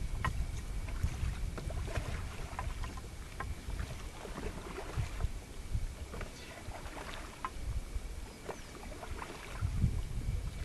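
Wind buffeting the microphone in a constant low rumble, with scattered small splashes and lapping of lake water.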